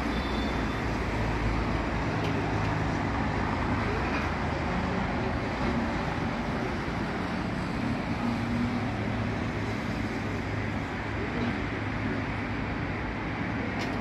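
Steady road traffic on a busy multi-lane city avenue: cars and engines passing in a continuous hum of tyres and motors, with no siren sounding.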